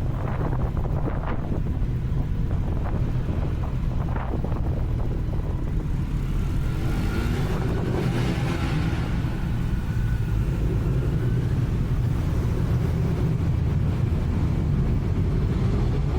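Kawasaki Z900 inline-four engine running steadily under way, with heavy wind noise on the microphone.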